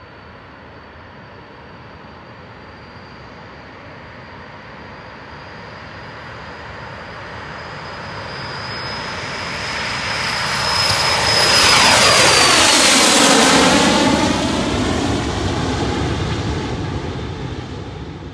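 Pilatus PC-24's twin Williams FJ44 turbofans at takeoff power as the jet rolls down the runway and passes by. A steady high turbine whine rises under a growing jet roar, loudest about twelve seconds in, where the whine drops in pitch as the jet goes past. The sound then eases off.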